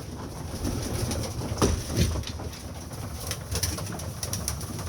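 Young domestic pigeons cooing softly in a loft, a few low calls rising and falling, with scattered light clicks among them.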